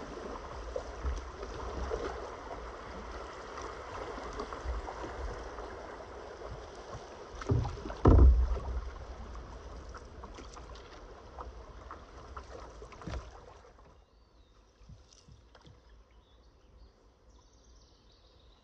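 A canoe under way on a fast-flowing river: steady rushing of water around the hull, with a loud hollow thump against the canoe about eight seconds in and a smaller knock near thirteen seconds. After about fourteen seconds the rushing drops away abruptly and it goes much quieter, with only faint scattered taps.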